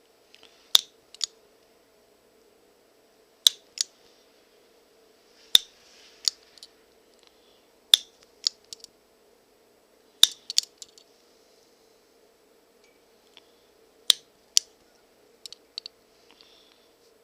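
Hand-stitching leather with a needle and artificial sinew: sharp short clicks, mostly in pairs, coming about every two to three seconds with each stitch.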